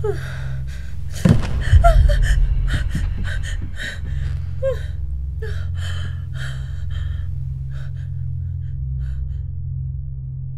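Horror soundtrack: a steady low drone, with a sudden loud hit about a second in. Over it comes a run of short, sharp gasps and breaths that thins out after about seven seconds.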